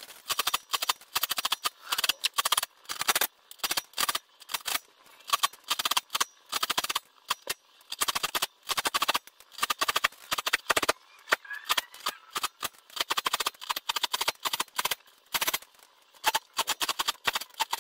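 Steel saw file rasping across the teeth of a crosscut panel saw held in a saw vise, in quick short strokes, about two or three a second, with brief pauses as the file moves from tooth to tooth. The teeth are being recut after the saw was re-jointed.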